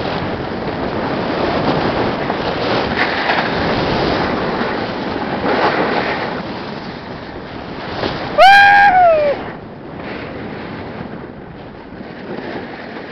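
Snowboard riding down the snow: the rushing scrape of the board over the snow, with wind on the microphone, quieter after about nine and a half seconds. About eight and a half seconds in, a person lets out a loud whoop lasting about a second that drops in pitch at the end.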